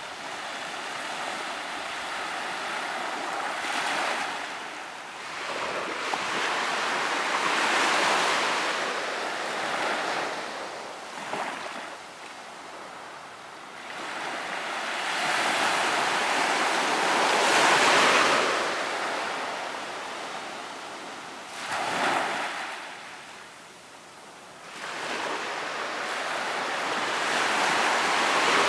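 Ocean waves washing onto a beach, surging and receding in swells every few seconds, with the biggest surge about two-thirds of the way through.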